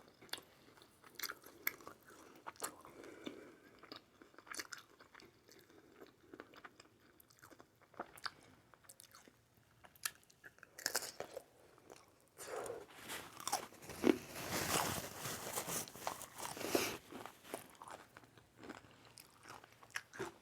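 Close-miked eating sounds of a person chewing aguachile verde: soft wet mouth clicks at first, then a stretch of louder, crunchy chewing a little past halfway that settles back to quieter chewing near the end.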